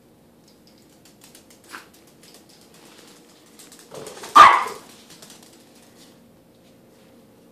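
A small Chihuahua-type dog gives one sharp, loud bark about four seconds in, with a fainter yip before it.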